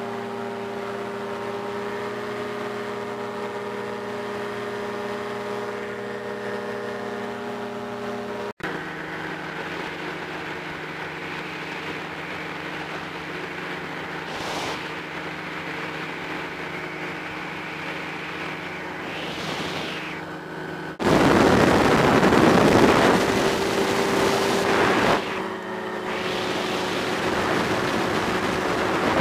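Powered parachute's engine and propeller droning steadily in flight. About 21 seconds in the sound jumps louder, with heavy wind rush on the microphone over the engine.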